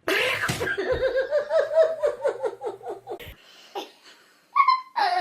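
A person laughing in quick repeated bursts, about five a second, fading after about three seconds. A short high-pitched call follows near the end.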